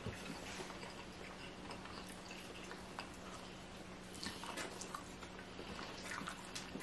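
Faint chewing and small wet mouth clicks of someone eating, over a steady low hum.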